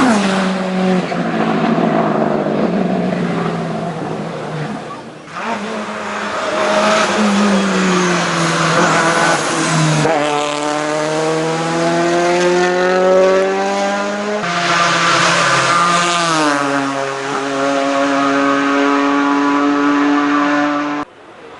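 Race car engines accelerating hard uphill. The pitch climbs through each gear and drops back at the shifts, with several passes cut together. The sound cuts off abruptly near the end.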